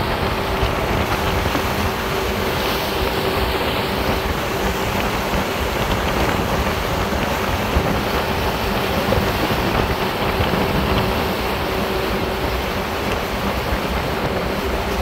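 Tugboat's diesel engine running steadily under way, a constant drone with a faint steady hum, over the rush of water along the hull and wind.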